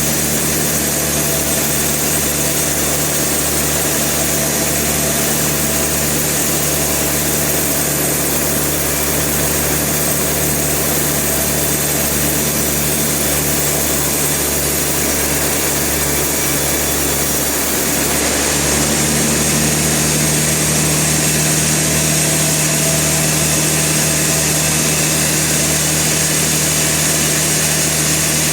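Sawmill machinery running with a steady engine hum. About two-thirds of the way through, the sound steps up slightly louder and brighter.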